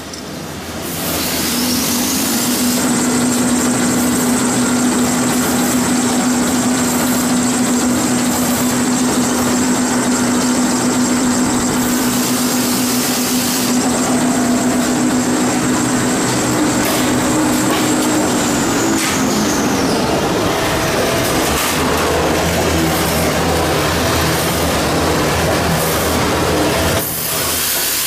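Toilet paper rewinding line running, a steady mechanical noise. Over it a motor hum and a high whine ramp up about two seconds in, hold steady, then wind down and stop about two-thirds of the way through.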